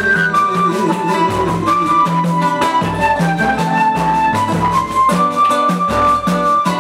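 Samba band playing an instrumental passage: a melody of held notes over a pulsing bass line and steady percussion.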